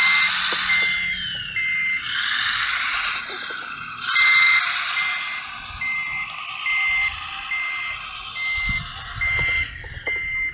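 Electronic reversing beeps from the sound module of a 1:14.5 RC Mercedes-Benz SK 3544 8x8 dump truck as it backs up, about one and a half beeps a second over a steady hiss. The beeps stop about two seconds in and start again about two seconds later.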